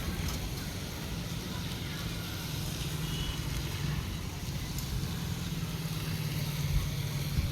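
A motor vehicle's engine running steadily, a low hum under a constant hiss.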